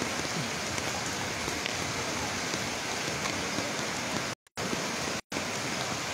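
Steady hiss of rain together with fast-flowing floodwater, with two brief dropouts where the sound cuts out, about four and a half and five seconds in.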